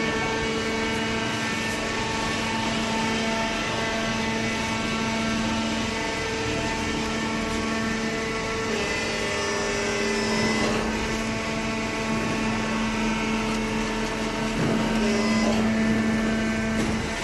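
Hydraulic baling press running: a steady motor-and-pump hum that shifts slightly in pitch a few times.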